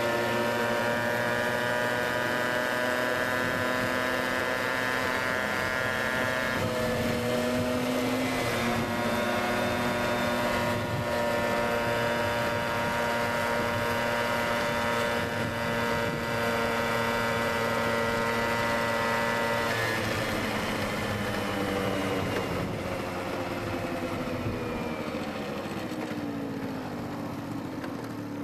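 Piaggio Ciao moped's small two-stroke single-cylinder engine running at a steady high pitch at full speed. The note wavers briefly about seven seconds in, then falls steadily over the last eight seconds as the moped slows down.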